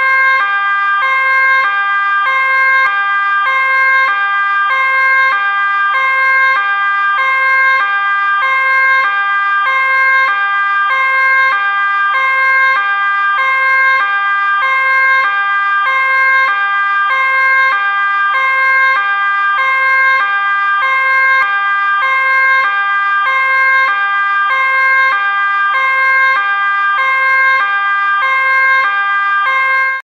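Dutch police two-tone siren, alternating steadily between a high and a low note in an even repeating pattern, then cutting off abruptly at the end.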